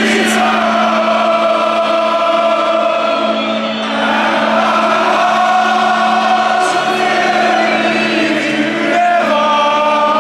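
A packed football stadium crowd singing together in long, held notes, along with music. The sung notes shift to a new phrase about nine seconds in.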